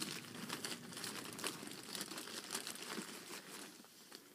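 Plastic marshmallow bag crinkling and rustling in irregular crackles as it is handled, dying down near the end.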